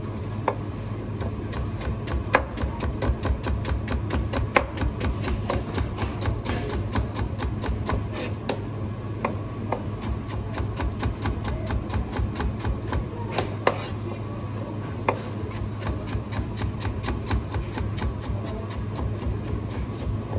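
Chef's knife chopping cucumber on a plastic cutting board, a quick run of sharp taps several strokes a second, over background music.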